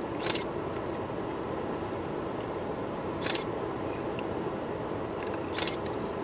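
Steady low hum of a vehicle's interior, with three short sharp clicks: one just after the start, one a little past three seconds, and one near the end.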